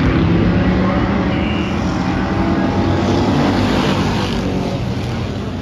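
Engines of a pack of dirt-track stock cars running together as the field circles the oval, slowly fading as the cars move away.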